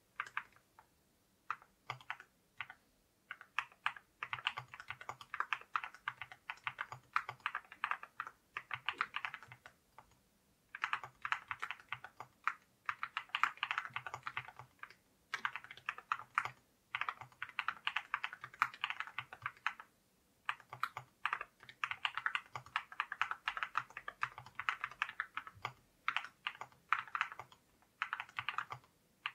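Typing on a JRIS 65 mechanical keyboard fitted with ceramic keycaps: fast runs of key clacks broken by short pauses every few seconds.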